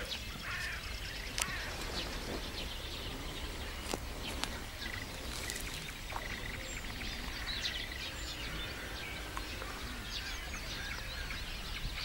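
Birds chirping and singing over a steady low rumble, with a couple of faint clicks.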